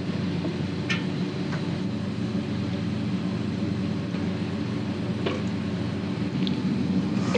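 Steady low machinery hum with several steady tones, with a few faint clicks of parts being handled.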